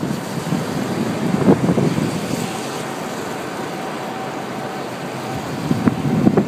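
Storm wind buffeting a car, heard from inside the cabin as a steady rushing noise.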